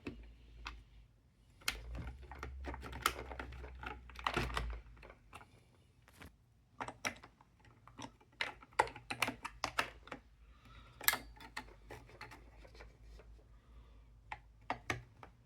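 Irregular small hard clicks and rattles of a puzzle box's parts as its rotating section is worked round and catches, the clicks coming thickest in the second half.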